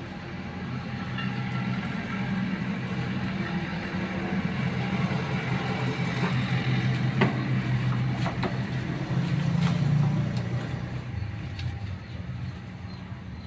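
A motor vehicle's engine passing by: a low drone that builds, is loudest about ten seconds in, then fades. A few sharp clicks sound in the middle.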